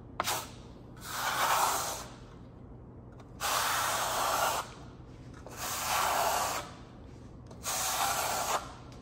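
Steel plastering trowel scraping across wet Marmorino lime plaster on a sample board in four strokes, each about a second long and about two seconds apart. A short click comes just after the start.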